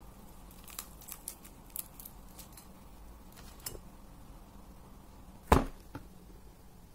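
Crispy batter-fried eggplant crackling in small, light crunches as it is torn apart by hand, then one loud knock near the end.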